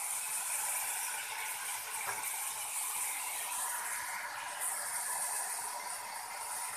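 Cubed gourd frying in oil in a wok, a steady sizzling hiss, with a light tap about two seconds in.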